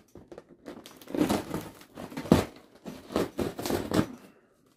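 Packing being handled while a large cardboard shipping box is opened and unpacked: irregular rustling and crinkling in uneven bursts, a few louder than the rest.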